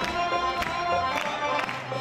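Macedonian folk dance music played live: melody instruments over a steady beat of a little under two strokes a second.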